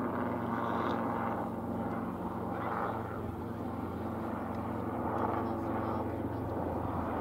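A steady low hum made of several steady tones, with distant voices over it.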